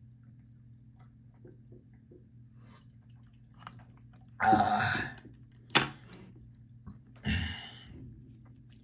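A man's mouth noises while cleansing his palate: faint chewing, then two short loud breathy bursts, about halfway through and near the end, with a sharp click between them, over a steady low hum.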